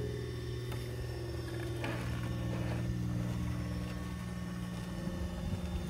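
Axial SCX6 RC rock crawler's electric motor and geared drivetrain giving a low, steady whine as it crawls slowly over rock, with a few faint clicks.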